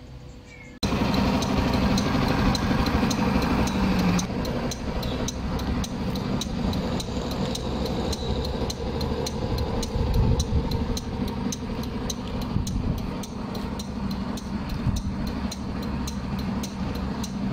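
Modenas Elegan 200 scooter's engine idling steadily, with a run of light ticks at about three a second on top. It comes in abruptly about a second in.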